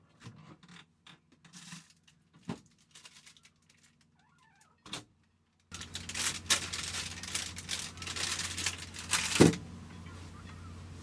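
Scattered clicks and taps at first. About halfway in, a busy run of clattering and rustling of objects being handled starts over a low steady hum, with one loud knock near the end.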